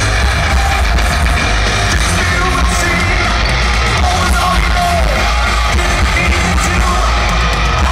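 Thrash metal band playing live at full volume, with distorted electric guitars, bass, drums and a lead vocal, heard from among a stadium crowd through a phone's microphone.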